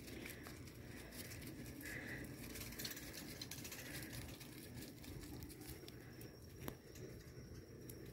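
Faint rustling and crackling of footsteps and a small dog's paws on dry fallen leaves, with scattered light clicks and one short high squeak about two seconds in.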